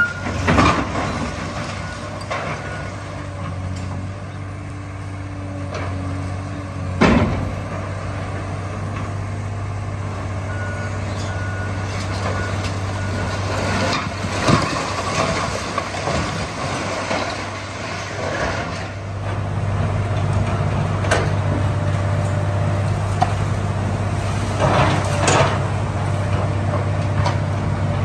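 Long-reach demolition excavator's diesel engine running steadily as its arm tears into a brick building, with several loud crashes of breaking masonry and falling debris every few seconds.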